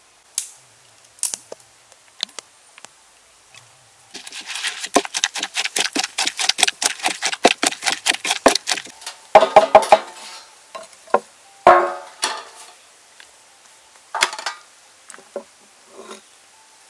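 Pestle pounding chilies, garlic, lemongrass and salt into a paste in a clay mortar: a few single knocks, then a quick steady run of about five strikes a second, then heavier, slower knocks and scrapes as the paste is worked around the bowl.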